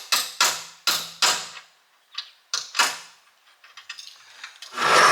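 Hammer blows on a steel push-nut washer cap being driven onto the end of a yard cart's axle: about seven sharp metallic strikes with a short ring, four and then three, followed by lighter ticks. Near the end a loud, longer rough noise sets in.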